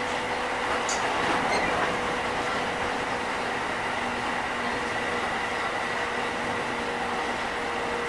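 Running sound of a JR 205 series 5000 subseries electric train with Toyo IGBT VVVF traction equipment: a steady rumble of wheels on rail with a faint whine held at constant pitch.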